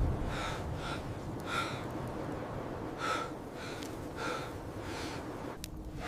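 A man breathing in short, sharp breaths, about six of them, over a steady wind-like hiss.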